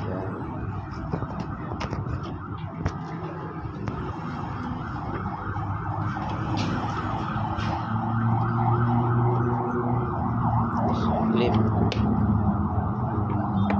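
A motor engine running with a steady hum that grows louder through the second half, with a few sharp plastic clicks.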